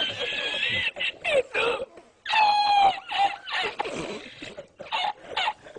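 A man's high-pitched, squealing laughter in broken bursts with short gasping pauses between them, the loudest squeal about halfway through.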